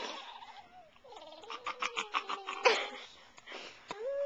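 Short, high-pitched vocal sounds that rise and fall in pitch, with a quick stuttering run of pulses about halfway through and a breathy burst just after.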